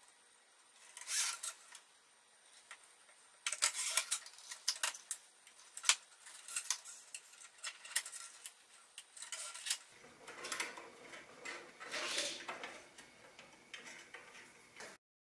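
Thin wire cable being threaded through the metal tubes of a pot-support frame: irregular light metallic clicks, taps and scrapes, joined about ten seconds in by a steadier rubbing and handling noise.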